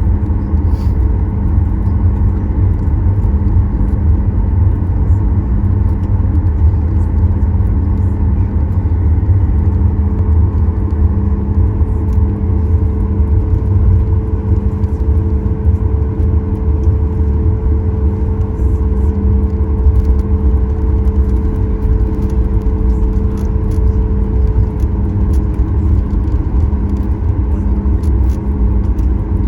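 Cabin noise of a Boeing 737 MAX 9 taxiing: a steady low rumble with even hums from the CFM LEAP-1B engines at idle, and faint ticks and rattles of cabin fittings.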